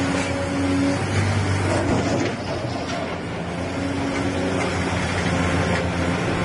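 Diesel engine of a Doosan crawler excavator running steadily with a low hum while the arm lifts and swings the bucket. The hum drops a little about two seconds in.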